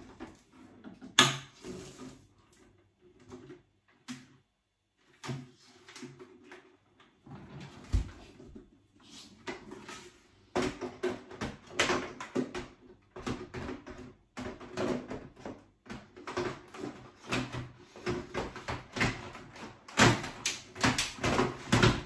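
Plastic vacuum cleaner parts being handled: a sharp click about a second in, then a dense run of plastic clicks, knocks and rattles as a handheld vacuum's dust cup is emptied into a metal pedal bin and an upright vacuum's dust canister is worked, with no motor running.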